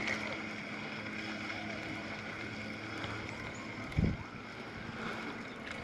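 A steady motor hum with a faint high whine, over light wind noise; a single soft thump about four seconds in.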